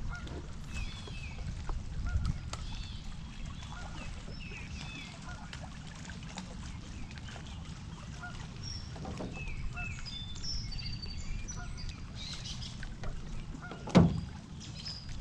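Birds calling with many short chirps over a steady low rumble of wind on the microphone, and a single sharp knock near the end.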